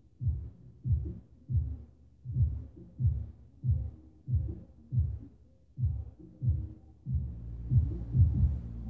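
Heavy low thuds coming through the building from a neighbouring apartment, about one and a half a second in an uneven beat. About seven seconds in, a steady low rumble joins under them and the thuds grow louder.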